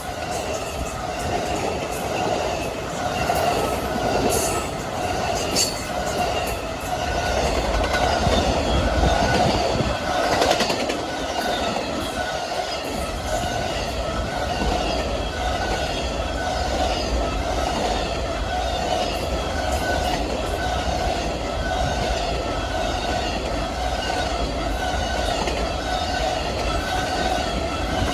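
Amtrak Auto Train cars rolling past on the rails: a continuous wheel-on-rail rumble with a steady ringing squeal and a faint repeating click as the wheels pass.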